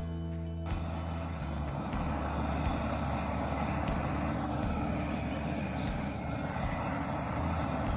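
Propane torch burning with a steady rushing hiss. Under a second in, it replaces music.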